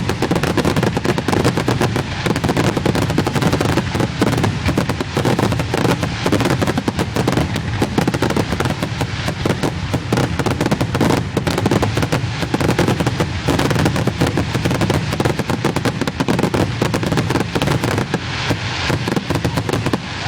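Fireworks going off in a dense, continuous barrage of rapid cracks and pops with no break, easing slightly near the end.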